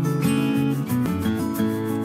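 Background music with acoustic guitar.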